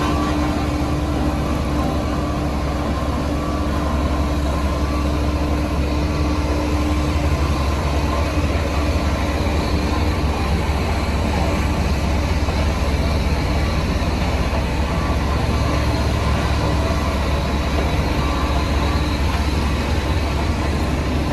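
Heavy diesel road-construction machinery running steadily with a deep, continuous rumble. A steady hum fades out about seven seconds in.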